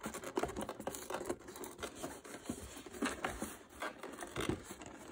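Fingers picking, scratching and tapping at a small cardboard figure box while opening it: a run of small irregular clicks and scrapes of fingernails and card.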